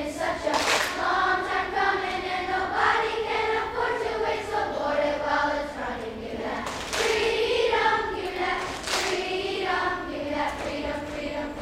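Children's choir of fourth- and fifth-grade voices singing a song together in held, sustained phrases.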